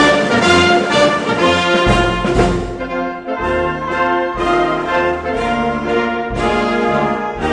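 Orchestral background music led by brass (trombones and trumpets), playing sustained chords that change about once a second over low bass notes.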